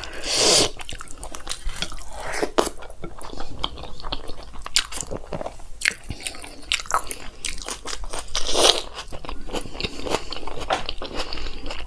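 Close-miked chewing of rice and chole, with wet mouth clicks and smacks and some crunchy bites. Two louder rushing sounds come near the start and about eight and a half seconds in.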